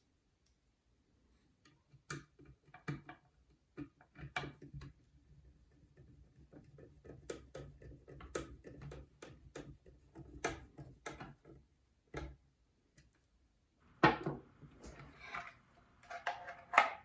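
Irregular light clicks and taps of small screws being driven in and metal parts handled while an adapter is mounted on an RC starter box, with a louder run of clatter about fourteen seconds in.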